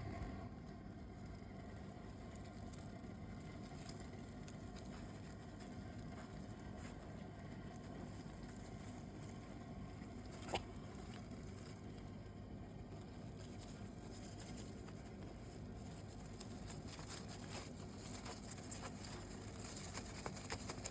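Homemade outdoor leaf vacuum running with a steady low hum, with light pattering as dry leaves are drawn in; a sharp click about halfway through and a few more clicks near the end.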